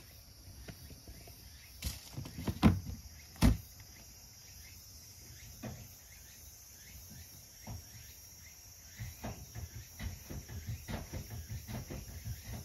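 A few sharp knocks, two to three and a half seconds in, the last the loudest, then a run of soft, quick taps near the end, over a faint steady high whine.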